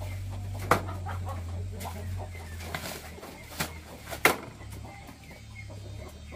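Chickens clucking nearby while heavy woven sacks of rice are shifted on motorbikes, with a few sharp knocks about 1 s and 4 s in, the second the loudest.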